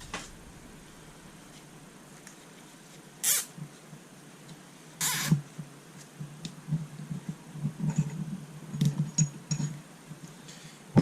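Workshop handling noises as engine parts are set down and fitted together: two short rasps about three and five seconds in, then a run of soft knocks and small clicks.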